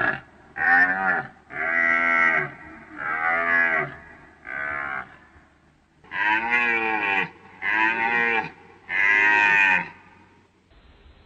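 A deer calling in a run of short, low groans, each falling in pitch: about seven calls, five in quick succession, a pause of about a second, then three more.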